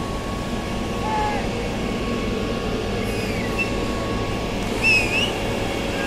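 Steady drone of construction machinery engines running, with a few short high chirps over it, the loudest about five seconds in.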